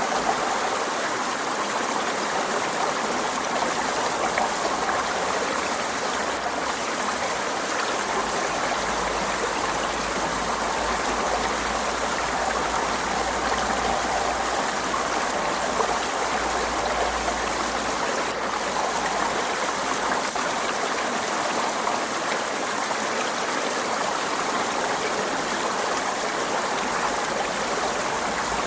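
Forest stream flowing over rocks: a steady, even rush and babble of running water.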